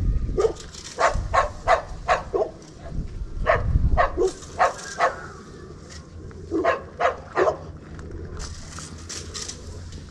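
Dog barking in three quick runs of sharp barks, about three a second, with short pauses between the runs.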